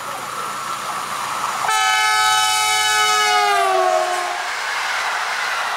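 Newag Griffin EU160 electric locomotive sounding one long horn blast, the Polish railway Rp1 'Baczność' (attention) warning signal, starting about a second and a half in; its pitch drops as the locomotive passes (Doppler effect). Then the steady rush of passenger coaches rolling past.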